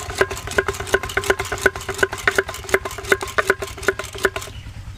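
Electric hand blender running in yogurt and water in a clay pot, churning it into lassi: a steady motor whine with rapid irregular clicking that cuts off near the end.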